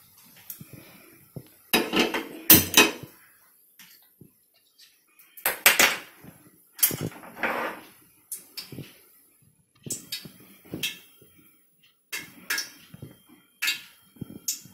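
Metal pots and utensils clattering and clinking in irregular bursts, loudest a couple of seconds in and again around six seconds, then scattered single knocks.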